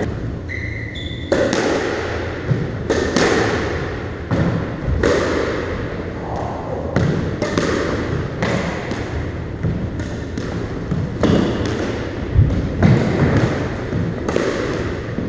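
Squash rally: the ball cracking off rackets and the court walls about two times a second, starting about a second in, each hit echoing in the enclosed court, with occasional low thuds of feet on the wooden floor.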